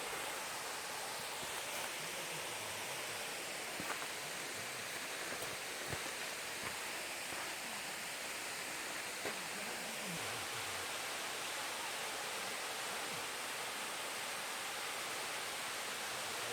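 Steady rushing hiss of falling and running water from a small waterfall and its stream, with a few faint ticks.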